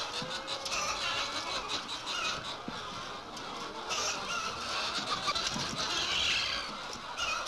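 A flock of chickens squawking and clucking together, a busy overlapping chatter of many birds.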